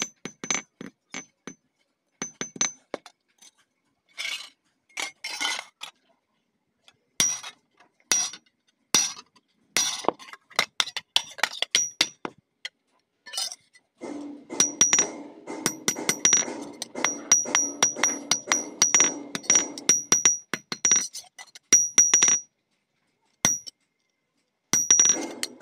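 Hand hammer striking a thin steel strip on a steel block: sharp, ringing metal clinks, scattered strokes at first, then rapid steady tapping of several blows a second from about halfway through, with two short pauses near the end.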